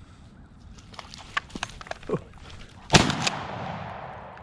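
A single shotgun blast about three seconds in, its report dying away over the next second or so. Before it, a few light snaps and rustles of dry brush.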